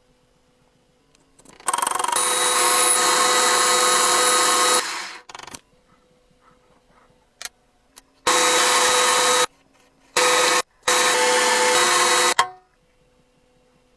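Power tool running in four separate bursts: one of about three seconds, then three shorter runs, each starting and stopping abruptly.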